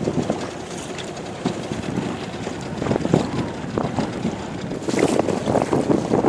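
Wind buffeting the microphone, with water noise, aboard a small inflatable boat under way on choppy water; the buffeting grows stronger about five seconds in.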